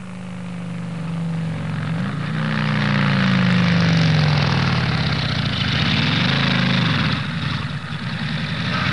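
An engine running and revving: the note swells louder over the first few seconds, climbs in pitch about two seconds in, drops back, and climbs again around six seconds in.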